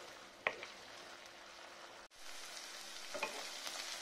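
Onion-tomato masala sizzling in a non-stick wok as a spatula stirs it, with one sharp knock of the spatula about half a second in. The sizzle breaks off for an instant just past halfway, then comes back brighter.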